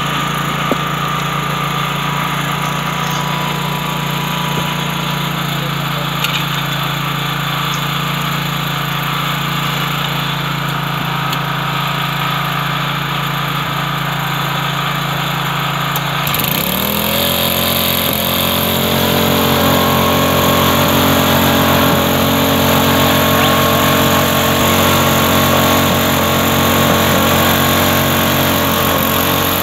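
A small petrol engine running steadily at low speed, then revved up sharply a little over halfway through and held at a higher, steady speed.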